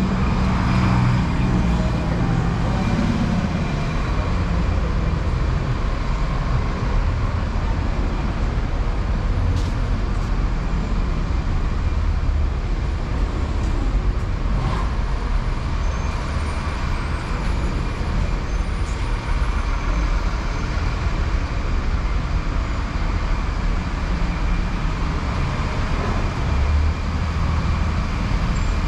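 Steady city street traffic: cars and buses running past, with a continuous low engine rumble and tyre noise.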